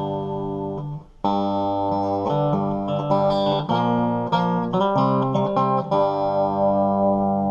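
Ibanez GIO Strat-style electric guitar on its bridge pickup, played through a Marshall Lead 12 amp on the low-sensitivity input with the gain at about 4, giving a pretty clean tone. A ringing chord is cut off about a second in and a new chord is struck. Then come picked single notes, ending on a held chord.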